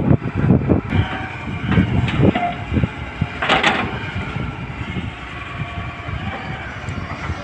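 Tata Hitachi 210 tracked excavator's diesel engine running under load as the loaded bucket lifts and the machine swings, with uneven low rumbling in the first couple of seconds and a brief hiss a little over three seconds in.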